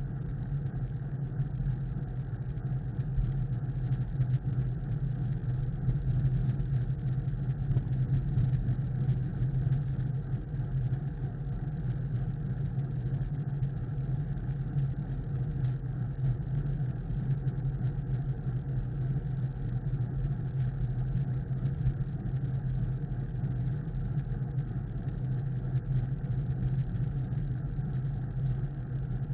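Steady wind rush and low rumble on a bicycle-mounted camera's microphone as the bike rides at speed, with tyre and road noise carried through the mount.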